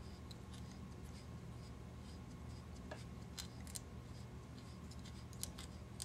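Faint, scattered small clicks and ticks from hands working thread and small scissors at a fly-tying vise, over a low steady hum.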